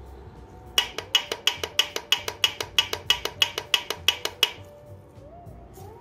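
Connecting rod on a Suzuki J20A crankshaft rocked by hand, clacking metal on metal about six times a second for nearly four seconds, then stopping. The play comes from a failed connecting rod bearing, the cause of the engine's knock.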